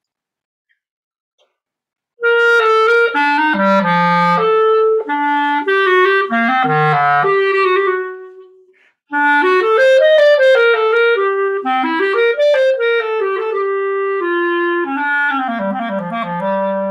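Buffet Crampon Festival clarinet played solo: after about two seconds of quiet a melodic phrase begins, breaks off for a breath about eight seconds in, and resumes a second later, moving between middle and low-register notes.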